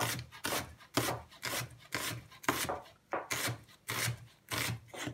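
Chef's knife slicing a red onion into thin slivers on a wooden cutting board: a steady run of short slicing strokes, about two a second.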